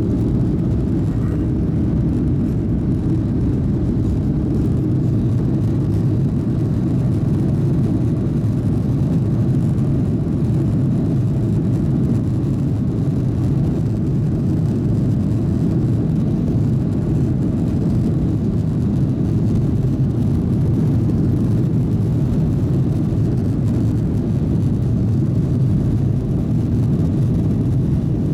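Steady low rumble of a jet airliner's engines and airframe, heard from inside the passenger cabin.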